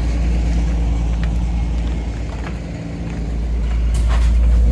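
A 1955 Gillig school bus's rear-mounted International Red Diamond 501 gasoline inline-six idling with a steady low rumble. The rumble dips a little about halfway through and then grows louder, with a few short knocks near the end.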